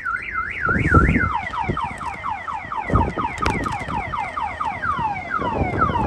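Car alarm siren sounding, the alarm that is suspected of keeping the car from starting. It switches about a second in from a fast warble to a repeated falling 'wee-woo' sweep, with a few low thumps underneath.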